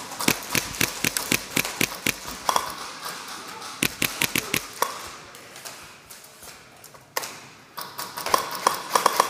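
Airsoft guns firing single shots in quick succession, sharp clicky snaps in irregular clusters: a fast run over the first two and a half seconds, a handful more about four seconds in, and another cluster near the end.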